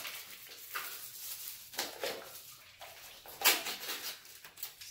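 An instant noodle cup being unwrapped and its lid peeled open, crinkling in several short rustles.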